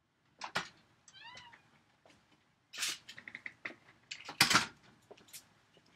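A glass storm door being opened and let shut: latch clicks, a short squeak from the hinges about a second in, then knocks, the loudest about four and a half seconds in as the door closes.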